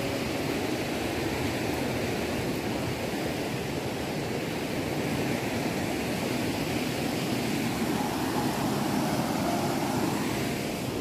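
Steady rushing of river water, an even noise with no breaks.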